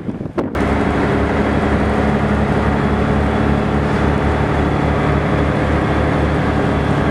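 Bus engine running steadily under way, heard from inside the passenger cabin, with a low, regular throb. Wind on the microphone for the first half second.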